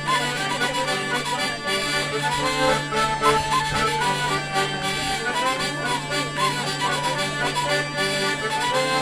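A hurdy-gurdy and a diatonic button accordion playing a traditional tune together, the hurdy-gurdy's drone a steady low hum under the melody.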